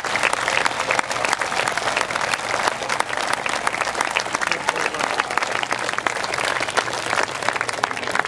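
Large audience applauding, many hands clapping densely and steadily.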